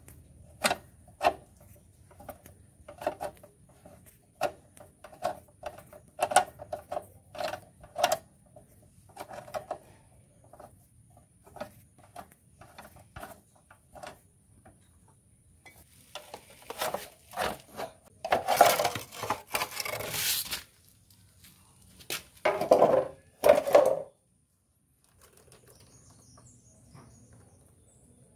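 A steel screwdriver clicking and scraping against the metal fittings on a motorcycle's rear swingarm: a run of light, irregular clicks, then from about halfway in several seconds of louder, denser scraping and rattling that stops a few seconds before the end.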